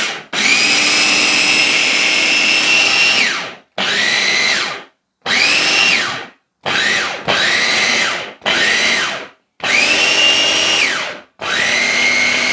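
Kmart Anko mini chopper's electric motor run with an empty bowl in short pulses: about eight bursts of high whine, each spinning up quickly and winding down as the button is let go. The first burst lasts about three seconds, the rest about a second each.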